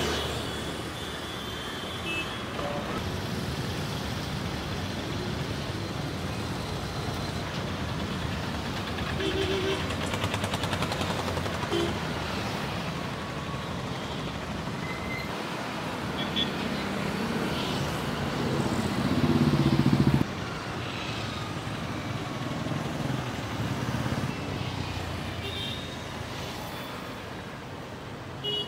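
Road traffic at a busy city junction: cars, auto-rickshaws, motorbikes and buses running past in a continuous rumble, with a few short tones along the way. About two-thirds of the way through, a louder passing vehicle rises and then cuts off suddenly.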